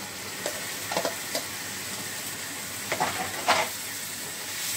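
Masala sizzling in a nonstick frying pan as boiled black chickpeas are tipped in and stirred with a wooden spatula. Several short scrapes and knocks of the spatula against the pan, the loudest about three and a half seconds in.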